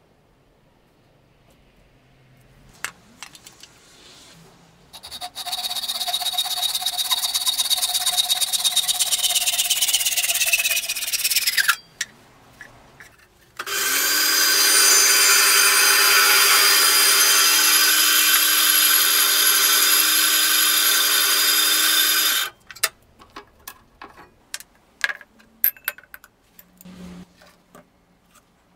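Electric power tool motor running in two bursts with a steady whine, its pitch sagging toward the end of the first burst. Scattered clicks and taps follow.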